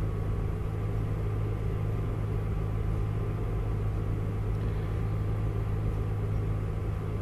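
Steady low hum with a faint hiss above it, unchanging throughout: the recording's background noise, with no other sound.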